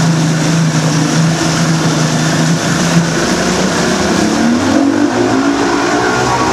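Mercury outboard motor running under way, its pitch steady for about three seconds and then rising as the engine speeds up, over a steady rush of churning wake water and wind.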